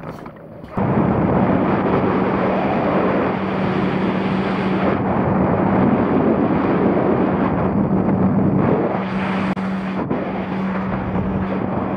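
Jet ski engine running at a steady speed with a constant hum, mixed with wind rushing over the microphone; it cuts in suddenly about a second in.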